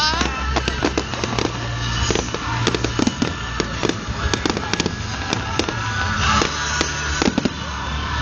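Fireworks going off in rapid succession, many sharp bangs and crackles, with music playing underneath.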